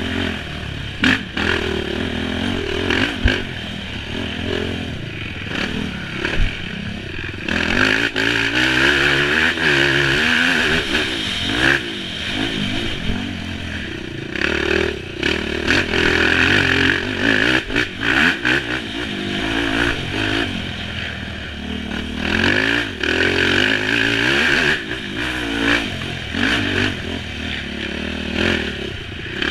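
Racing ATV engine revving up and falling back again and again as it is ridden hard along a rough dirt trail, with repeated knocks and rattles from the machine jolting over the ground.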